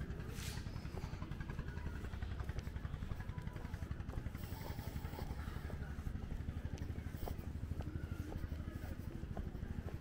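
Low, fluttering rumble of wind buffeting the microphone of a hand-carried camera, with a few faint clicks.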